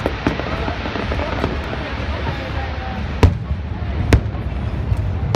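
Aerial fireworks shells bursting overhead: two sharp bangs about three and four seconds in, and a fainter one near the end.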